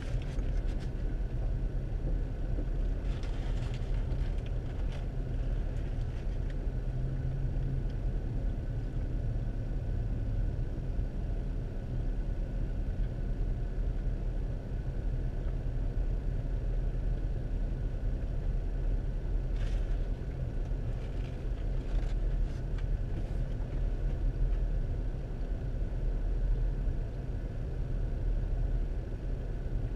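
Steady low rumble of a car heard from inside its cabin, with a few faint brief rustles.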